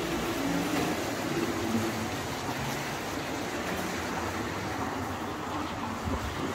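Car driving on a wet cobbled street, its tyres hissing on the wet paving, loudest in the first couple of seconds.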